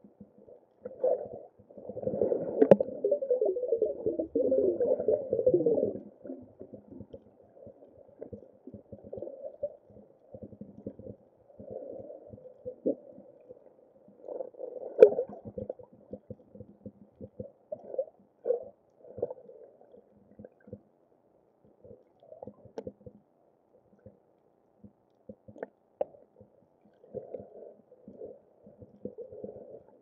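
Muffled underwater sound through a camera housing: irregular gurgling bursts of bubbles and water movement, heaviest for a few seconds near the start and again briefly about halfway through.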